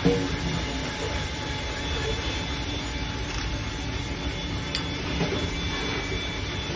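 Steady background din of a street food stall, an even rumble and hiss with faint voices, and a small click at the very start.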